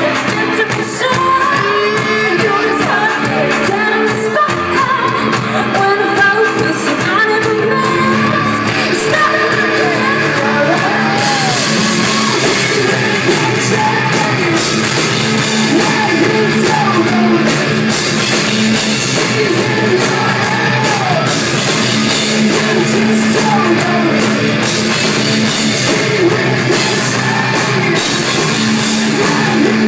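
Live rock band playing loud and steady, with drums, guitar and vocals.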